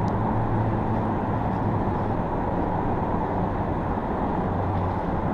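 Steady low rumble of road traffic crossing the bridge overhead, with a low hum that fades and returns.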